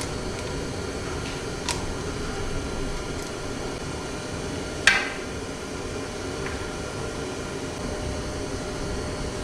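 Steady mechanical hum, with one sharp clank about five seconds in and a faint click earlier.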